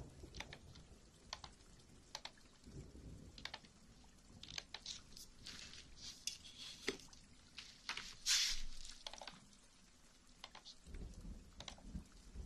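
Soft ASMR tapping and scratching close to the microphone: scattered light clicks, with brief scratchy rustles, the loudest about eight seconds in.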